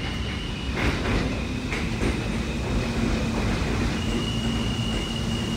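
New York City subway train approaching through the tunnel, a steady low rumble with a thin high whine from the wheels and a few clicks of wheels over rail joints.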